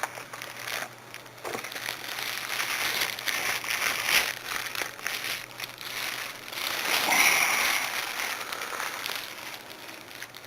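Plastic packaging crinkling and rustling in irregular handling noise as a pair of leg irons is taken out of its wrapping, loudest in two stretches.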